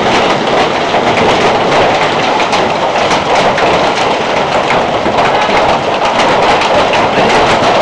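Heavy hail pelting down: a loud, continuous, dense clatter of hailstones striking hard surfaces, with rushing noise underneath.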